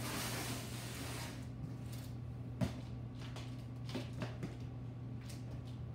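Rustling handling noise right at the microphone for the first second, then a few light, sharp knocks from someone moving about with a ball in a small room, over a steady low hum.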